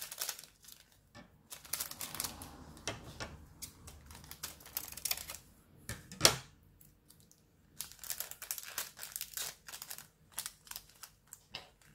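Plastic bags of resin diamond-painting drills being handled: crinkling plastic and a run of small irregular clicks and rattles, with one sharper click about six seconds in.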